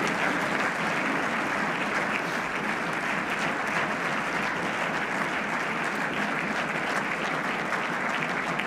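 A roomful of people applauding steadily, a dense, even clatter of many hands clapping.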